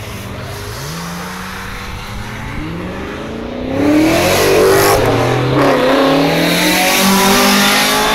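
Car engine revving hard as the car accelerates past through the gears. Its pitch climbs steadily, it gets much louder about four seconds in as the car comes close, and the pitch falls back and climbs again at a gear change.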